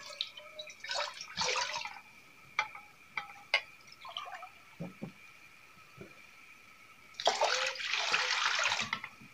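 Water poured from a glass into an empty cooking pot, in two pours: a short one about a second in and a longer, louder one near the end, with a few small knocks between.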